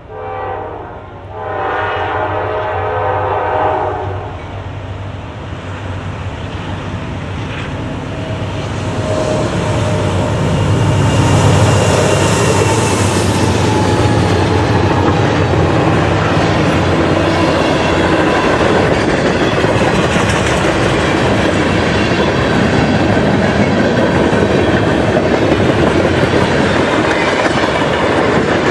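A diesel train's air horn sounds one blast of several notes at once for about three seconds at the start. The locomotive's engine rumble and the wheel clatter then build and stay loud as the train passes.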